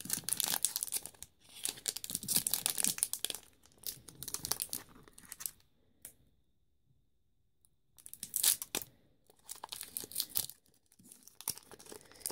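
Foil wrapper of a Pokémon TCG Steam Siege booster pack being torn open and crinkled by hand, in crackly bursts, broken by a fully silent gap of about two seconds midway.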